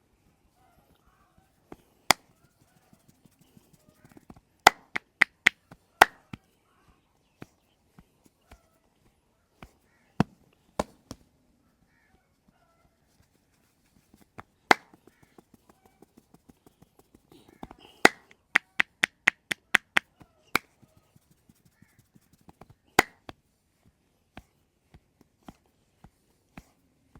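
Percussive massage strokes: sharp hand slaps on the head and back, in quick runs of five to eight strikes about three or four a second, with single sharp pops between them.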